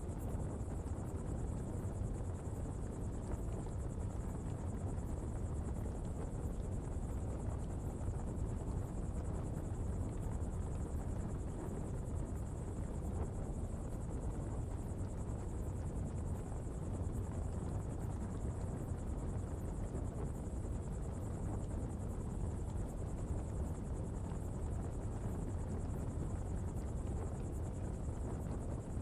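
Coal-fuelled open pottery fire burning with a steady low rumble, while insects shrill steadily at a high pitch.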